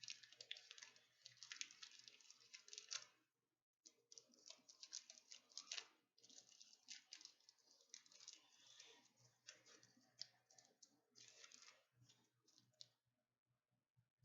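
Faint crinkling and crackling of a foil Pokémon booster pack wrapper being handled and opened, in irregular bursts with two short pauses.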